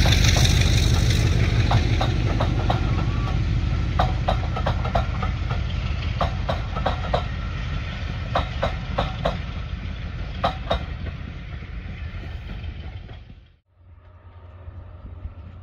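Class 33 diesel locomotive 33109 hauling a train, its Sulzer engine running and slowly fading as the wheels click over rail joints in short groups. Near the end the sound cuts off suddenly, leaving a quieter engine hum.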